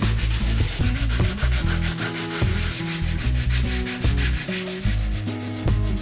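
Hand sanding the edges of wooden boards with sandpaper on a wooden sanding block: quick back-and-forth scratchy rubbing strokes. Music with a stepping bass line plays underneath.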